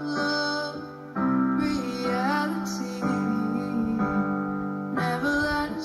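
Music: a woman singing a slow, wavering melody over held chords that change about every two seconds.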